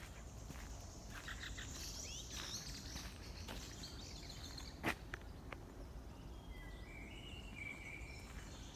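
Footsteps walking through a forest, with birds chirping. A single sharp click about five seconds in.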